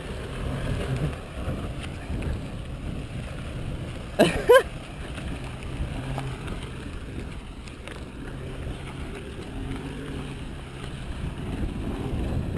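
Pickup truck engine running at low revs as the truck drives off along a rutted dirt track, its pitch rising and falling a little. A short, loud whooping shout cuts in about four seconds in.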